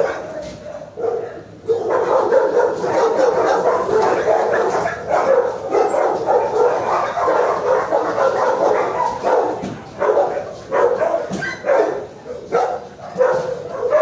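Dogs barking in a shelter kennel block, the barks crowding together into a steady din from about two seconds in and breaking into separate barks after about nine seconds.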